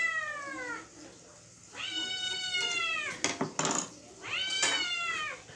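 Domestic cat meowing three times. Each long call starts high and slides down in pitch; the first is already tailing off at the start.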